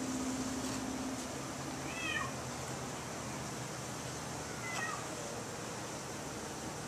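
Italian honeybees humming in an open top-bar hive, a steady drone with a low buzz close by in the first second or so. Two short falling calls cut through it, at about two seconds and again near five seconds.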